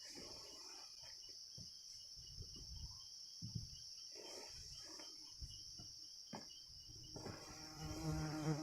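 Steady high-pitched chirring of forest insects, with scattered soft knocks. Near the end a low buzzing hum starts close by, like a fly or bee passing the microphone.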